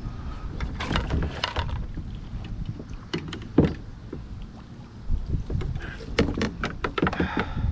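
Scattered knocks and clunks on a kayak, with a low rumble of handling noise underneath, as an angler works in the boat.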